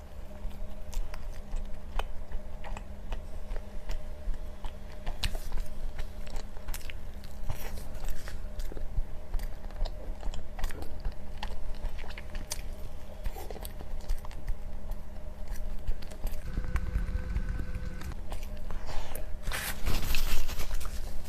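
Close-up chewing and biting of food: frequent short crunchy clicks over a steady low hum, with a louder, noisier stretch near the end.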